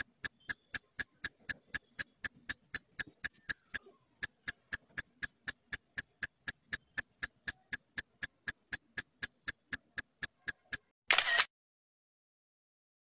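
An evenly paced ticking sound effect, about four sharp ticks a second, with a short break about four seconds in. It stops about eleven seconds in with a brief loud noisy burst.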